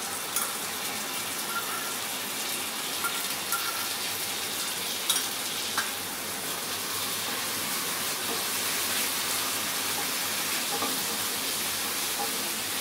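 Chopped garlic and other aromatics frying in oil in a pan, a steady sizzle with a few sharp clicks of a utensil against the pan.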